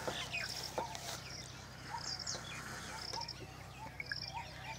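Birds chirping and calling: short high notes and quick little glides repeated every second or so, over a steady low hum.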